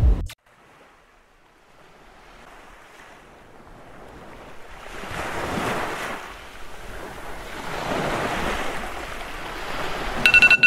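Music cuts off abruptly, then ocean waves wash in and swell twice in long surges. Near the end, a loud electronic alarm tone starts beeping in short repeated bursts, as a phone alarm going off.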